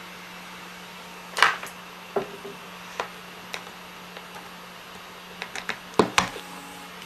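Hard disk drive knocking: irregular sharp clicks, some single and some in quick clusters, over a steady hum. The knocking is typical of a failing drive.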